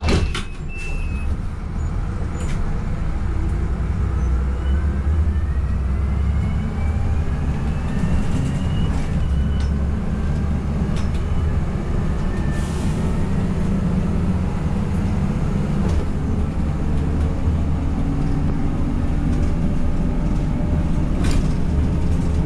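Interior of a Van Hool A300 city bus under way: a steady low engine drone. A whine climbs in pitch for several seconds as the bus picks up speed, and the body knocks and rattles now and then.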